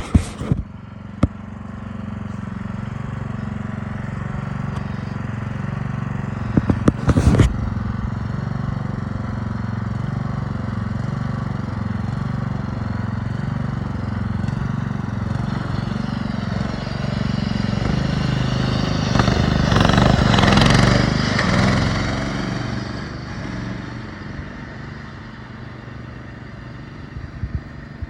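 Craftsman riding lawn tractor's engine running steadily at speed, growing louder about twenty seconds in as it comes close, then fading away. A few sharp knocks about seven seconds in.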